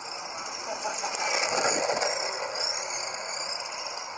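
Radio-controlled dirt oval modified car running on the track, its high motor sound gliding up and down and getting louder as it passes close about two seconds in, then fading.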